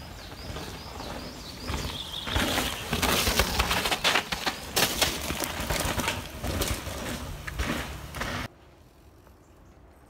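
Bicycle ridden over rough ground: a loud rush of noise with many rattles and knocks, cutting off suddenly near the end. A few high chirps sound in the first couple of seconds.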